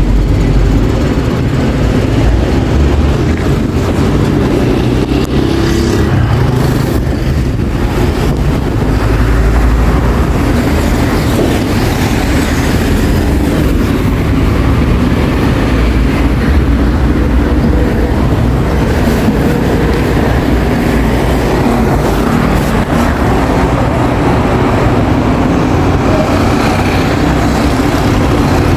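City street traffic: a continuous rumble of passing cars, trucks and motorcycles, loud and steady with a deep low-end drone.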